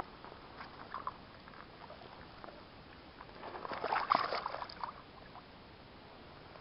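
A carp splashing as it is released from a landing net into the shallows. A burst of splashing lasts about a second and a half around four seconds in, with a few small sloshes and drips of water before it.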